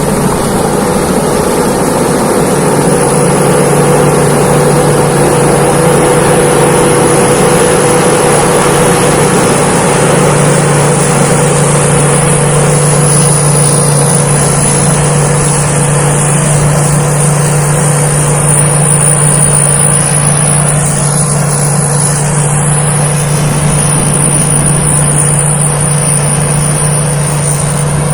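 Rice combine harvester running steadily as it harvests, a continuous engine drone with a steady high whine over it.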